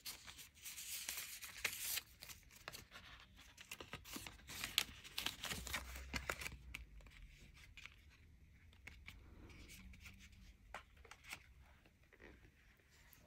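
Paper and card packaging rustling and crinkling as it is handled, with scattered light clicks and taps. The rustling is busiest in the first half, then quieter.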